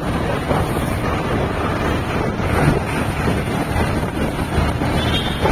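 Wind rushing over the microphone of a moving vehicle, with steady engine and road noise underneath.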